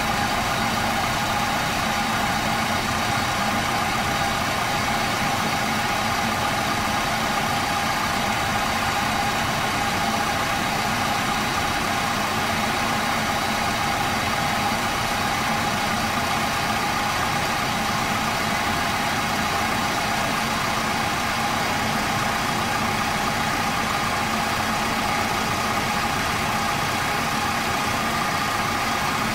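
2001 Chevrolet S10 pickup's engine idling steadily, heard from the open engine bay, with a thin steady whine over the running.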